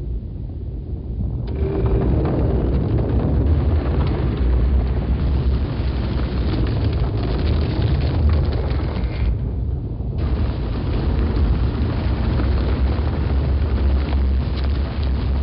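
Sound-effects layer of a huge rolling boulder: a continuous heavy rumble, strongest in the deep bass, with a rough grinding hiss above it. The upper hiss drops out briefly about nine seconds in.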